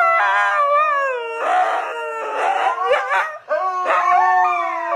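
Huskies howling together in long, wavering howls that slide up and down in pitch, with a brief break about three and a half seconds in.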